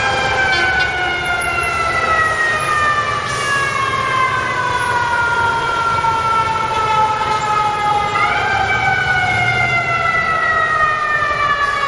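Mechanical siren on a fire department emergency vehicle, spun up quickly at the start and again about eight seconds in, each time winding down in a long, slowly falling wail. Steady city traffic rumble underneath.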